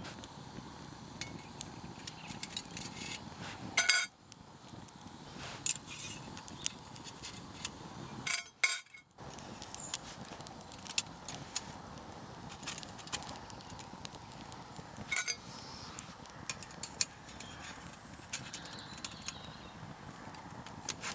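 Wood fire crackling in a small folding steel twig stove, with several sharper metal clinks as a folded steel Hexamine-stove frame is handled and set on top of the stove.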